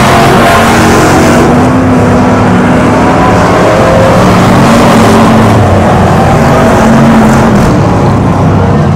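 Stock cars racing on a dirt oval, several engines at full throttle at once, very loud, their pitch rising and falling as the cars pass.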